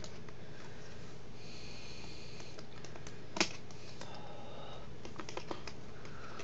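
Small screwdriver working a stuck screw in a laptop's plastic screen bezel: scattered light clicks and taps on plastic, with a brief scratchy scraping about one and a half seconds in and a sharper click about three and a half seconds in.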